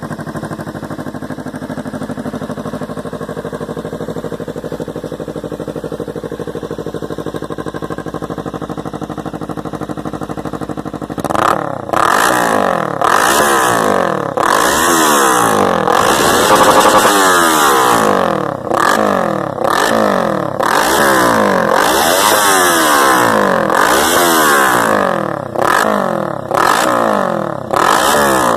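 Kawasaki Ninja 300 parallel-twin engine through a loud aftermarket sport exhaust, idling steadily. About halfway through it starts to be revved in quick repeated throttle blips, roughly one a second, each rising and falling in pitch.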